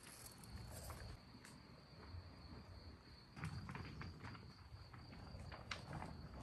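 Faint footsteps and rustling over a steady high-pitched tone.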